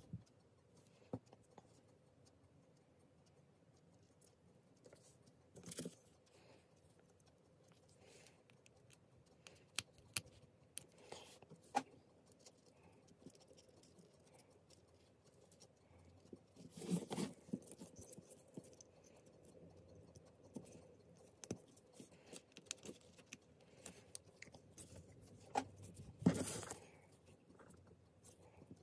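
Faint, scattered clicks and scrapes of hand work on a small electronics board: a small screwdriver turning screw-terminal screws and jumper-wire pins being fitted, with two longer rustling noises, about a quarter and nine-tenths of the way through.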